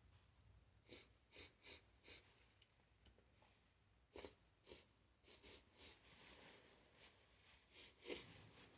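Faint, quick sniffs through the nose in short runs of three or four, with breathing between and a sharper, louder sniff or catch of breath near the end, as chhinkni snuff is drawn up the nose to set off a sneeze.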